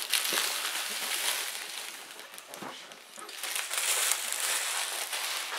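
Rustling and crinkling of packaging as the contents of a board game box are handled and moved about. It eases off briefly in the middle and picks up again after about three and a half seconds.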